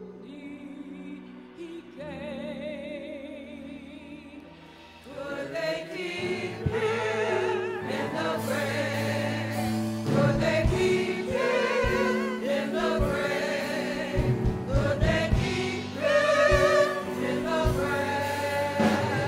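Gospel choir singing with a woman leading on microphone, over held keyboard chords. The voices swell in about five seconds in, and drums join with steady low beats about ten seconds in.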